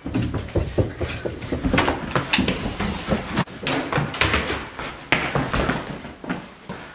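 A run of irregular footsteps and knocks, with an interior door being opened by its handle.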